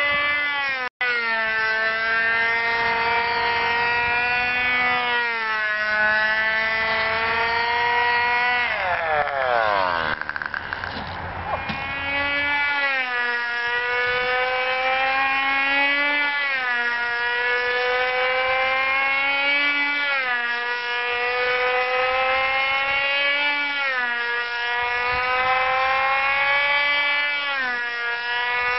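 Webra .20 (3.5 cc) two-stroke glow engine of a control-line model airplane running flat out as the plane circles on its lines. Its high buzz rises and falls in pitch once per lap, about every four seconds. Once, about nine seconds in, the note sinks steeply for a couple of seconds before climbing back.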